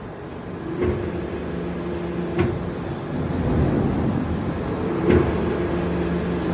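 Sectional spiral flight forming machine running with a steady hum and a low drone that swells for a second or two at a time, while a metal disc is worked in its forming head. Three sharp metallic knocks come about a second in, around two and a half seconds, and a little after five seconds.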